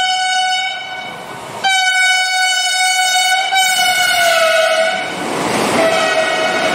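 An express train sounding its horn in long blasts, with a short break about a second in. The horn's pitch drops about four seconds in, and the rush and rattle of the train going by grows near the end.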